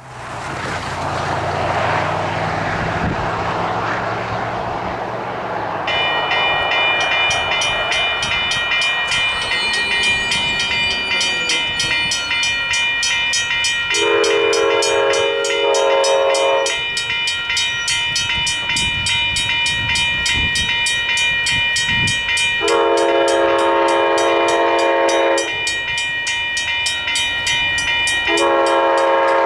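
Western Cullen Hayes electronic crossing bell ringing rapidly and steadily, starting about six seconds in as the crossing signals activate. Over it, an approaching Amtrak P42DC locomotive sounds its horn in two long blasts, then begins a third near the end. Before the bell starts there is a low rumble and rushing noise.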